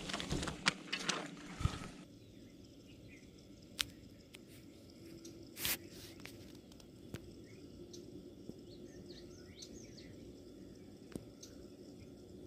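Quiet outdoor ambience with faint, scattered bird chirps and a few isolated clicks. During the first two seconds louder rustling and handling clicks dominate, then stop abruptly.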